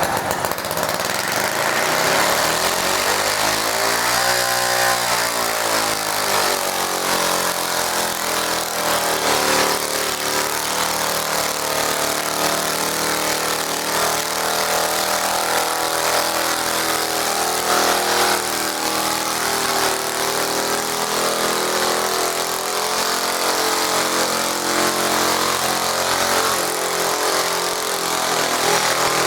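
Garden tractor engine running at high revs under load, its pitch rising and falling about four to five seconds in, then holding fairly steady.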